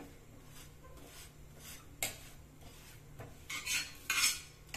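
Steel spatula clinking and scraping on a tawa while a toasting sandwich is pressed and turned over: one sharp clink about two seconds in, then two short, loud scrapes near the end.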